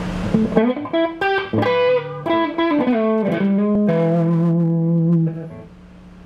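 Electric guitar played through the EGO TM2 overdrive pedal into a tube amp: a short overdriven phrase of single notes and bends, ending on a held note that stops about five and a half seconds in, leaving a steady amp hum.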